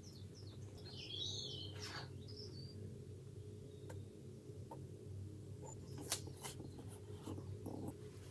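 Masking tape being peeled off a painted plastic model kit with metal tweezers: a run of faint high chirps and squeaks in the first two seconds, then scattered light clicks and ticks, over a low steady hum.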